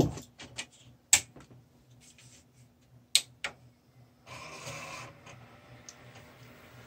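A desktop PC being switched back on: a few sharp clicks, the loudest about a second in, then a short rush of air for under a second about four seconds in as the fans spin up at power-on, over a faint steady low hum.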